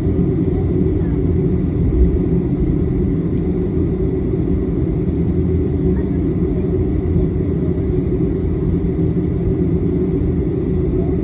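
Steady low rumble of a jet airliner taxiing, heard from inside the passenger cabin, with one brief low bump about two seconds in.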